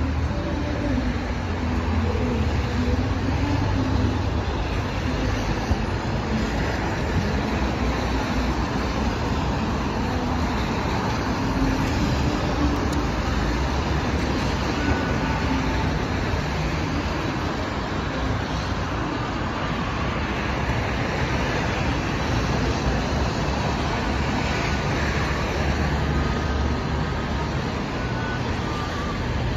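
Steady city street traffic noise: cars driving along a wet road, a continuous low rumble with tyre hiss.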